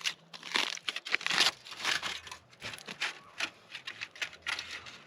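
Irregular crinkling and crunching, several short crackles a second, as a sweet potato baked in campfire coals is dug out and handled.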